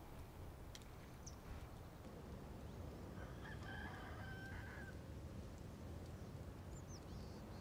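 A rooster crowing once, faintly, starting about three seconds in, over quiet rural background, with a couple of short high chirps.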